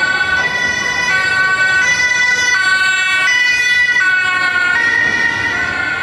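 Emergency vehicle's two-tone siren alternating between a high and a low note, each held for under a second. Near the end the pitch drops slightly.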